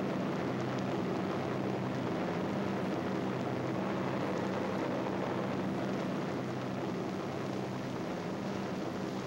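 Steady drone of propeller aircraft engines, an even low hum under the hiss of an old film soundtrack.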